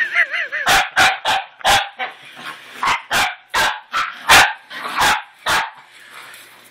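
Miniature pinscher barking sharply and repeatedly at a toy puppy, about a dozen barks in quick runs, stopping about a second before the end.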